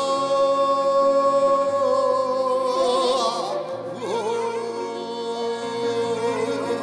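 A man singing long held notes with vibrato in the style of Korean traditional singing, accompanied by piano. One long note lasts about three seconds, and a second begins about four seconds in.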